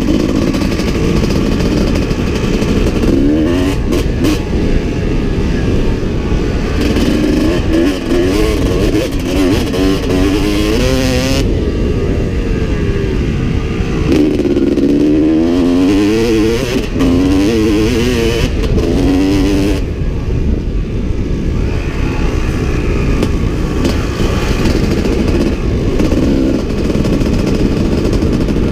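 2005 Kawasaki KX250's two-stroke single-cylinder engine revving up and down while the dirt bike is ridden, its pitch climbing and falling again and again with the throttle.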